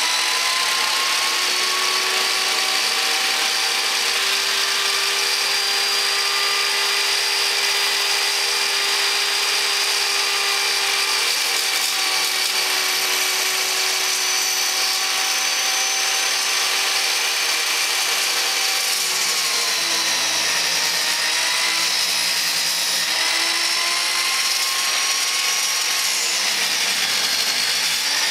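A 10-inch Harbor Freight table saw with an 84-tooth Freud Diablo non-ferrous blade, running at full speed with a steady high whine. About two-thirds of the way in, the pitch drops and wavers as the blade loads up cutting through the aluminium extrusion.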